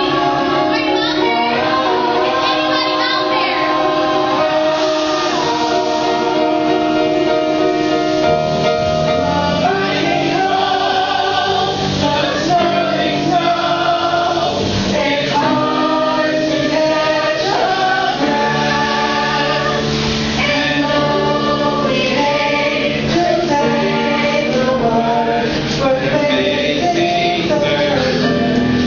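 A chorus of young voices singing a musical-theatre number over instrumental accompaniment, with long held notes in several parts.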